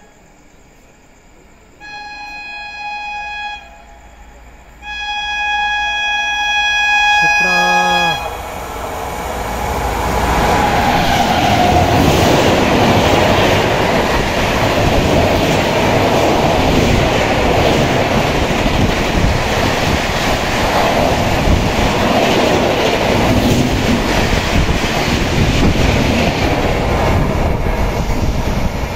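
Indian express train running through a station at about 129 km/h. The locomotive horn gives two chord blasts, the second and longer one dropping in pitch as the engine passes. Then comes the loud, steady rush and wheel clatter of the coaches going by at speed.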